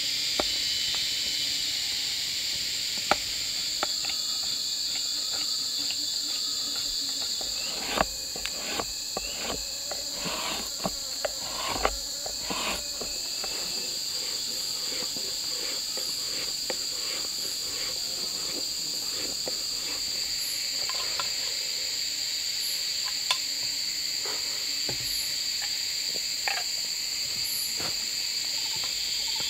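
Steady, high-pitched insect chorus, two even tones droning without a break, with scattered sharp taps and knocks, most of them bunched together about eight to thirteen seconds in.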